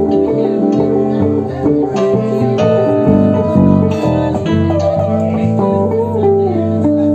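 Live band playing an instrumental passage, with guitar, bass, keys, saxophone and drums together: held and moving melodic notes over a steady drum beat.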